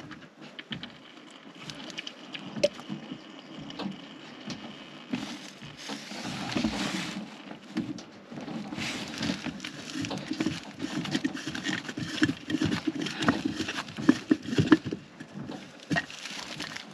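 Rustling with irregular clicks and knocks as hands work in a boat's engine compartment, unscrewing the plastic lid of the engine's raw-water strainer. The engine is not running.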